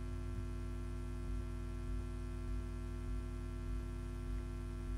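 Steady electrical mains hum with a faint low pulse about every two-thirds of a second.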